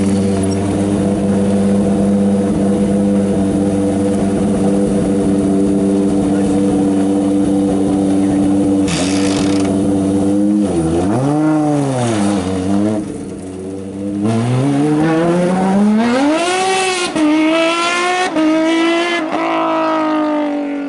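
Racing sports-prototype engine idling steadily, then revved once and let fall back about eleven seconds in. It then revs up as the car pulls away and accelerates hard, the pitch dropping and climbing again at each upshift, before fading off near the end.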